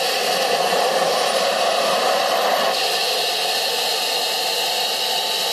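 Gas turbine engine of a finned show car running steadily: an even, loud rushing hiss with a faint whine, and a thin high tone climbing in pitch over the first couple of seconds.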